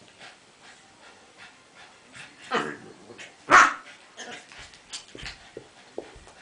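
Two Cavalier King Charles spaniels, an adult and a puppy, play-fighting: two sharp barks about two and a half and three and a half seconds in, the second the loudest, among quieter short scuffling sounds.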